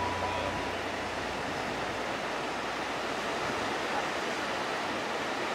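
Ocean surf washing and breaking, a steady hiss of water noise.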